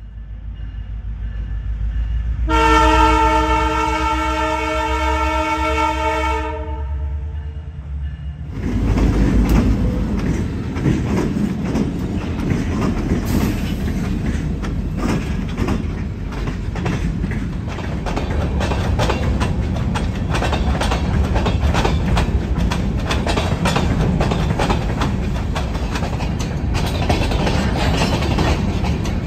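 Canadian Pacific diesel freight train approaching and passing close by. Its air horn sounds one long chord of several tones for about four seconds. From about eight seconds in, the locomotives' engines go by loud, followed by covered hopper cars rumbling past, their wheels clicking steadily over the rail joints.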